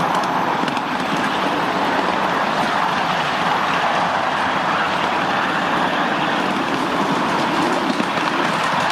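Miniature ridable train running along its track with passengers aboard: a steady rolling noise of the wheels on the rails.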